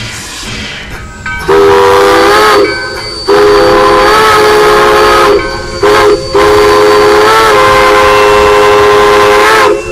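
Steam locomotive's chime whistle sounding four blasts, long, long, short, long, the standard grade-crossing signal, each blast a chord of several notes.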